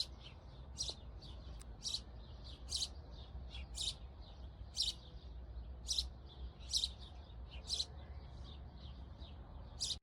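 A small bird chirping repeatedly, with short high chirps at an uneven pace of about two a second, over a steady low rumble.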